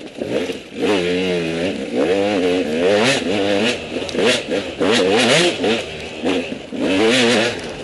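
KTM 200 EXC's single-cylinder two-stroke enduro engine under hard riding, revving up and down over and over as the throttle is worked, its pitch rising and falling about once a second.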